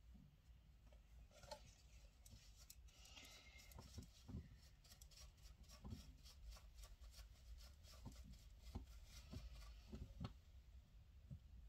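Faint brushing of an eyeshadow brush being blended over the skin, with scattered small clicks and taps.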